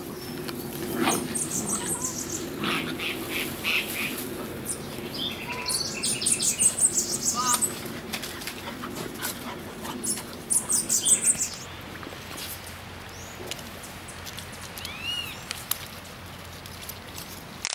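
Labrador puppies scuffling and playing in grass and dry leaves: bursts of rustling and scratching that come and go, with a few short high chirps.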